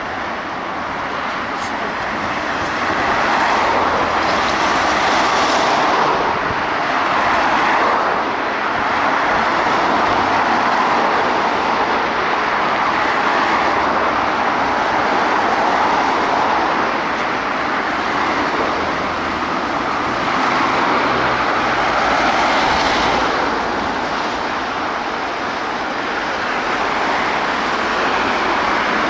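Road traffic on a busy street: cars, vans and a lorry passing in a steady stream, the noise swelling and easing as vehicles go by.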